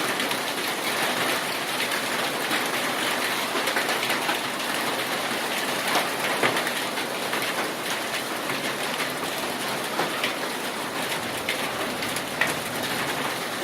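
Heavy rain falling steadily, with many separate drops ticking sharply against a hard surface close by.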